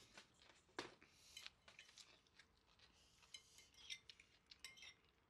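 Faint scattered clicks and light scrapes of a fork and spoon against bowls during a meal, with two sharper clinks in the first second.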